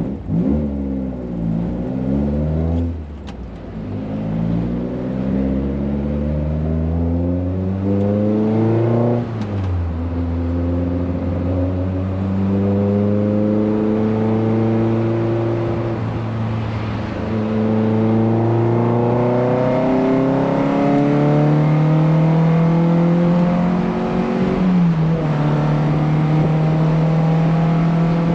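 VW Golf Mk1's 1.8 16V inline-four on twin Weber carburettors and a Supersprint exhaust, driving: the engine note falls briefly, then rises under acceleration and drops back at each upshift, about three times, each climb slower than the last, settling to a nearly steady pitch near the end.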